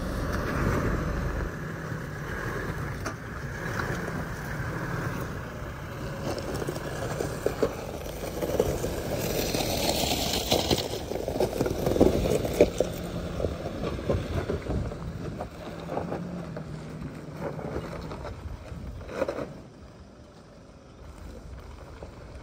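Off-road 4x4 driving slowly over a rough, washed-out dirt trail: engine running steadily, with occasional knocks and a louder stretch of hissing noise about ten seconds in, quieter near the end.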